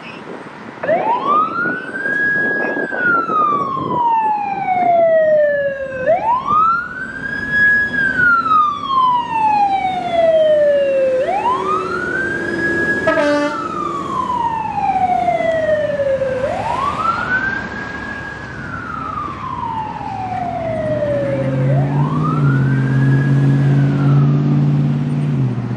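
Fire engine siren on wail: five cycles, each climbing quickly, holding briefly at the top, then sliding slowly down, about five seconds apart. A deep steady tone joins in over the last few seconds.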